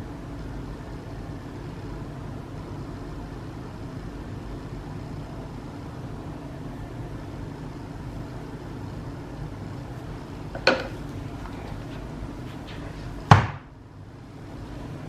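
Steady low background hum, with two sharp knocks about two and a half seconds apart near the end, the second the louder.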